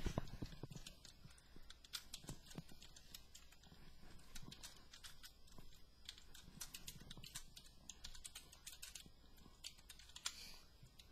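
Typing on a computer keyboard: faint, irregular clicks of single keystrokes, with a louder knock right at the start.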